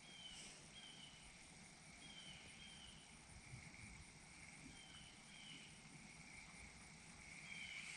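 Near silence of summer pond-side ambience: a faint steady insect drone, with a short two-note bird chirp repeating every two or three seconds.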